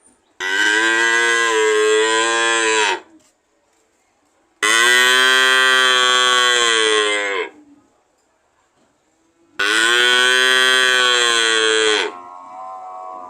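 Cow mooing: three long, loud moos of about three seconds each with short pauses between, then a softer, shorter moo near the end.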